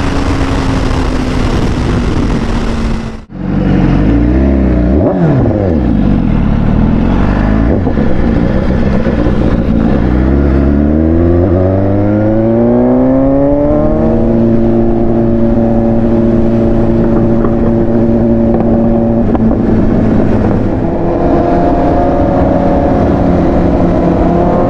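Sport-bike engine under heavy wind rush at highway speed, cut off about three seconds in. Then a BMW superbike's engine from onboard: the revs dip and come back, climb in pitch under acceleration, then hold a steady note.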